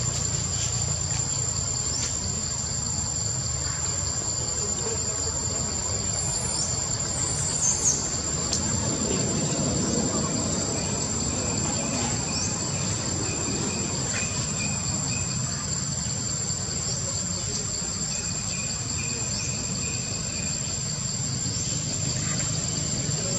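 Steady, high-pitched chorus of insects trilling in the trees, with a few short higher chirps about seven seconds in and a low rumble underneath.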